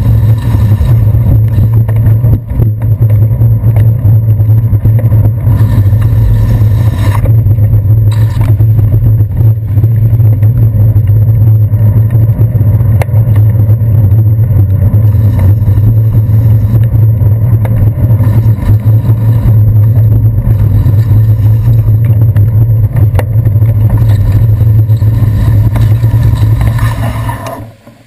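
Steady low rumble of wind and road vibration picked up by a handlebar-mounted GoPro Hero 2 as a bicycle rolls over wet city pavement, with traffic mixed in. The rumble drops off sharply near the end as the bike slows.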